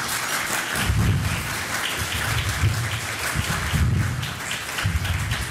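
Audience applauding, a steady crackle of many hands clapping.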